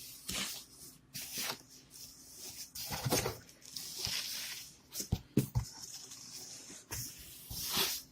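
Cardboard shipping box being opened by hand: tape ripping and cardboard scraping and rustling in irregular bursts, with a few sharp knocks about five seconds in.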